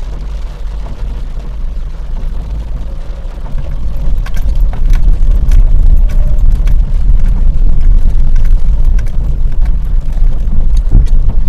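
Inside a car driving in rain: a steady low rumble of engine and tyres, getting louder about three and a half seconds in as the tyres roll over cobblestones, with scattered light ticks of raindrops hitting the windscreen.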